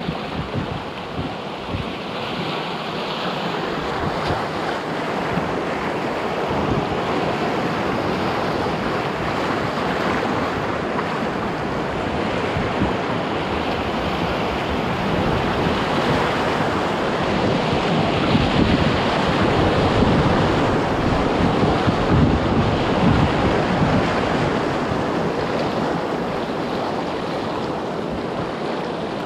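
Rushing whitewater of Class I river rapids around a canoe, with wind buffeting the microphone. Steady and loud, a little louder for a stretch about two-thirds of the way through.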